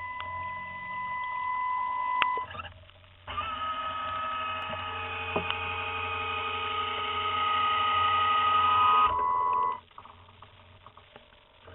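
Electric motor whine from inside a model submarine, picked up by a camera in its hull. A high steady whine for about two seconds, then a louder whine of several steady tones switches on sharply about three seconds in and cuts off sharply about nine seconds in, while the boat dives.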